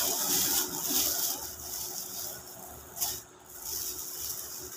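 Thin plastic bag rustling and crinkling as it is handled and opened, in uneven bursts with a sharper crinkle about three seconds in.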